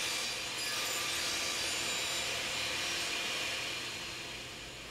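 Table saw running steadily as a pine tail board on a miter-slot dovetail sled is pushed into the blade to cut the tail kerfs. The sound eases off slightly near the end.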